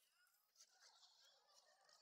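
Near silence with faint, distant voices calling.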